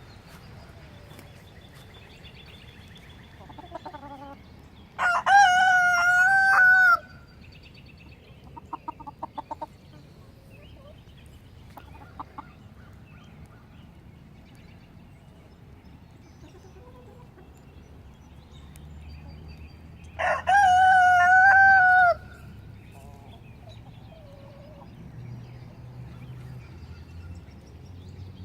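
Rooster crowing twice, each crow about two seconds long and some fifteen seconds apart, with softer short clucks from the chickens in between.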